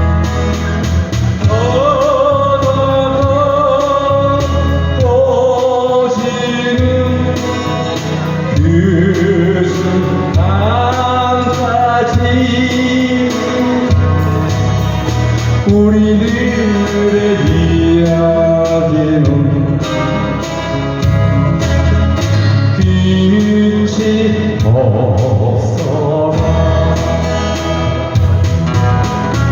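A song: a singing voice holding long, sliding notes over instrumental accompaniment with a steady bass.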